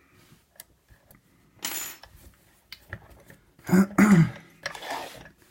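Small metallic clicks, clinks and a short rattle from the opened cheap 30 mm padlock and the lock picks being handled. A brief vocal sound comes about four seconds in.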